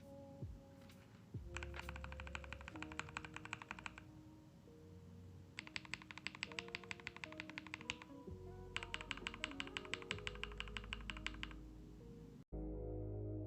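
Typing on an NJ68 mechanical keyboard with lubed AKKO x TTC Demon linear switches: three runs of fast, even keystrokes over lo-fi background music. The typing stops about a second before the end, leaving only the music.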